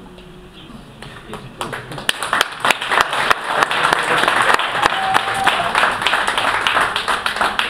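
Small audience applauding, the clapping starting about a second and a half in, growing full and thinning out near the end.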